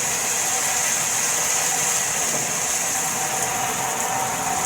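Water spraying steadily from a running HammerHead all-metal dual shower head combo, an even high hiss of the spray.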